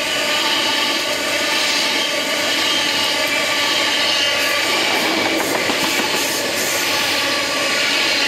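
Loaded bogie coal hopper wagons of a freight train rolling past close by: a steady, loud run of wheel-on-rail noise, with high ringing tones held over it.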